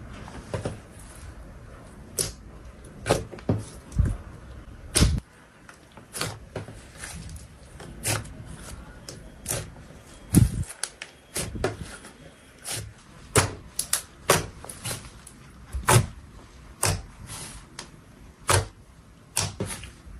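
Slime or putty being squeezed and worked by hand, giving sharp irregular pops and clicks as air pockets burst, about one or two a second.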